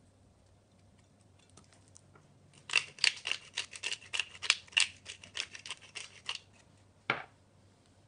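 Hand-twisted pepper grinder cracking peppercorns: a quick run of dry clicks, about five a second, for nearly four seconds. A single knock follows near the end.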